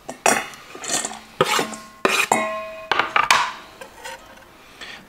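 Sliced leek being scraped off a wooden cutting board into a bowl with a knife: several scrapes and knocks, and the bowl rings briefly after a knock a little past two seconds in.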